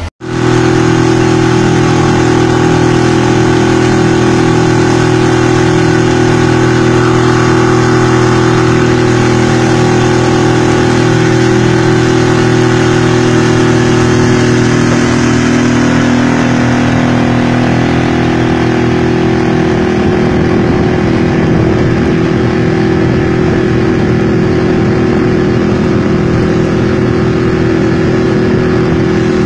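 Motorboat engine running steadily under way at cruising speed, a constant engine note with a rush of water and wind along the hull.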